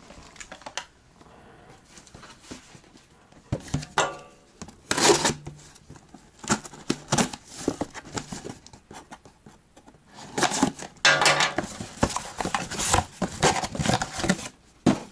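A cardboard shipping box being opened: its tape slit with a knife, the flaps pulled back and the contents handled, in a string of scrapes, rips and knocks that grows busy in the last few seconds.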